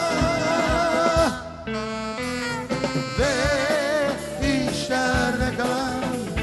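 Live band playing a slow pop song, with a singer holding long wavering notes over bass, drums and percussion.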